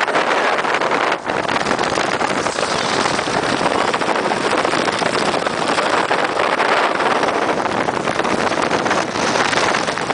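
Strong wind blowing over the microphone: a loud, steady rushing noise with no pitch to it, dipping briefly about a second in.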